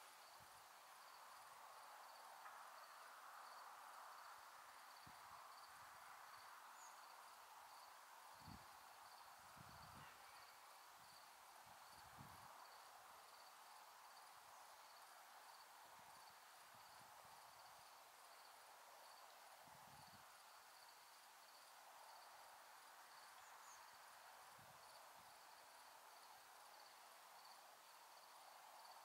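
Faint crickets chirping in a steady, even, high pulse over a quiet hiss, with a few soft low thumps.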